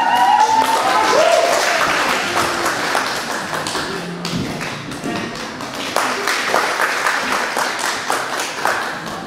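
Bare feet slapping and thudding on gym mats and an inflatable airtrack as children run and tumble, a quick series of taps and thuds, with music playing.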